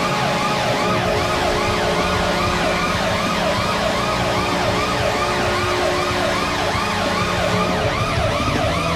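Goal-celebration siren sound effect: a fast yelping siren sweeping up and down about two or three times a second over a steady low tone.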